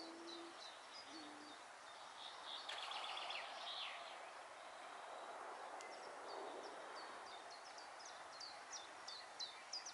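Faint outdoor birdsong: a low hooting note at the start and a shorter one about a second in, with small birds chirping in quick repeated high notes throughout and a trill about three seconds in.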